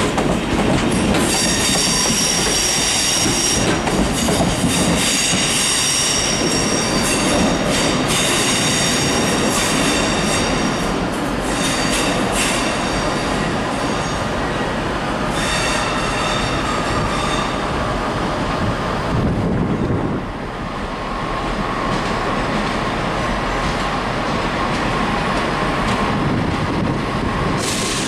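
A train moving through a station, its wheels squealing on the rails with a high-pitched ringing squeal over the clatter of wheels on rail joints. The squeal fades out about halfway through, leaving a lower steady whine.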